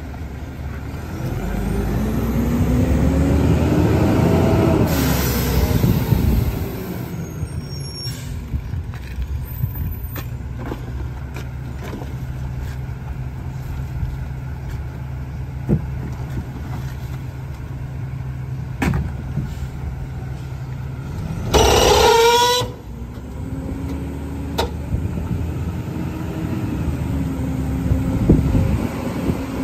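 Rear-loader garbage truck's hydraulic packer cycling, a whine that rises and then falls over the first several seconds, then the truck idling steadily with a few knocks of bins against the hopper. About 22 seconds in there is a short, loud hiss with a squeal.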